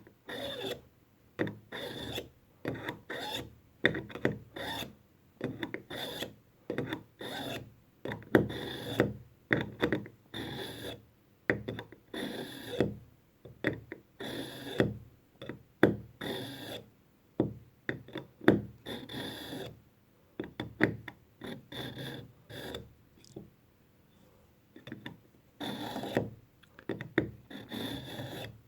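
Swiss Army pocket knife blade drawn over and over through the coarse slot of a KitchenIQ pull-through knife sharpener, a rasping scrape of steel on the abrasive at about two strokes a second, with short pauses about two-thirds of the way through.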